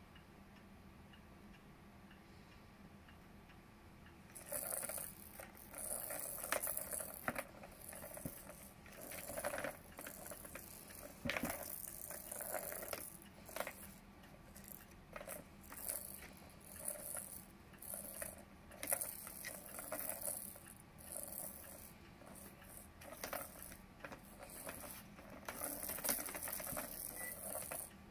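Plastic balls rolling and rattling around the tracks of a three-tier ball-track cat toy as a cat bats at them, in irregular bursts beginning about four seconds in.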